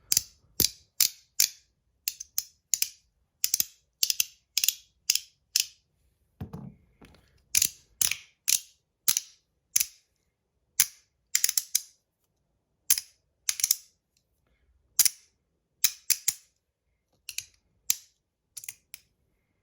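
Metal fidget toy being snapped over and over: sharp, bright clicks, often in quick pairs, about one or two a second with a few short pauses.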